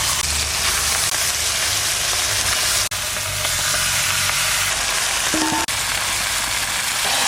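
Marinated duck meat frying in hot mustard oil in a kadai: a steady, loud sizzle.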